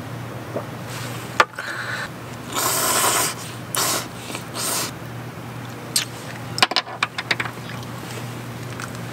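Cup noodles being prepared by hand: a sharp click, then paper and plastic rustling and tearing in several short bursts as the lid is peeled and a seasoning packet torn open, then a quick run of light clicks and taps as the packet is shaken out. A low steady hum runs underneath.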